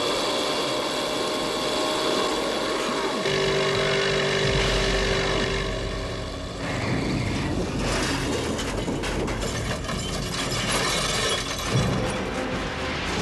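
Film soundtrack mix: a vehicle engine running at speed under orchestral music, then a run of crashing, clattering impacts through the second half.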